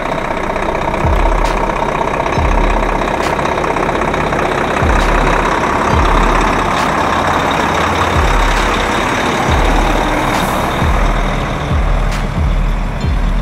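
Volvo FH truck's diesel engine running as it drives past and pulls away through its high exhaust stacks, loudest around the middle. A music beat with deep, evenly spaced kick drums plays along with it.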